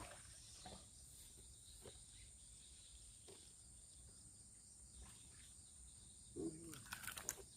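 Faint, steady high-pitched insect chirring, as of crickets, with a few soft clicks and a brief murmur of a voice near the end.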